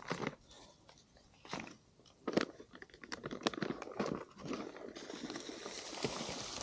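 Irregular crunching and clicking handling noises with quiet gaps between them, then a steady hiss from about five seconds in.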